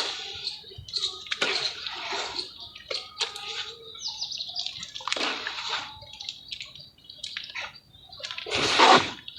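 Red mud crumbling into water: irregular sloshing splashes and small crackles, with louder splashes about one and a half, five and nine seconds in.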